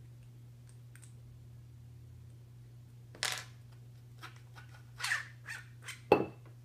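Metal lightsaber hilt being handled as its pommel is taken off: a scrape about three seconds in, a few light clicks and scrapes, then a sharper knock near the end.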